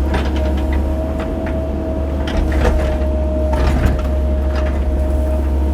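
Cat 308 mini excavator's diesel engine running under load with a steady whine, and a scatter of knocks and scrapes as the bucket works through gravel and mud.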